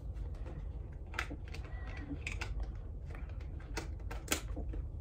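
Plastic disc cases and packaging being handled: scattered light clicks and rustles.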